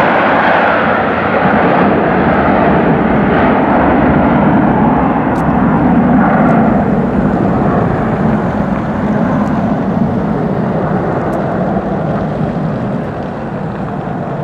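Two IAE V2500 turbofan engines of an Airbus A320 at takeoff power during the takeoff roll: a loud, steady rush of jet noise that slowly fades over the second half as the aircraft moves off down the runway and lifts off.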